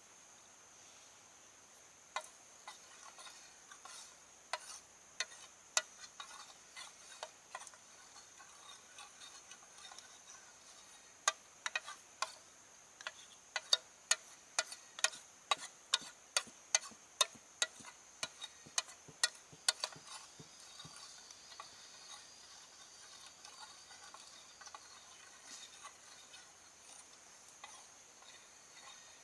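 Steady high-pitched insect chirring, with a series of sharp clicks or knocks over it. The knocks are scattered at first, come at about two a second through the middle, then thin out.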